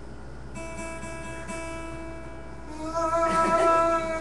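Acoustic guitar: a plucked note rings out about half a second in, then a louder strum near the end.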